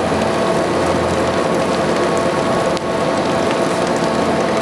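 Screw press running steadily, its drive humming under a dense crackling rattle as shredded, soaked pistachio press cake is forced out past the discharge cone and drops into a pail.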